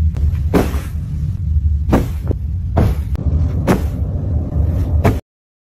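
Cat purring right against the microphone, a loud steady low rumble with a few brief scuffs of fur on the phone. It cuts off suddenly near the end.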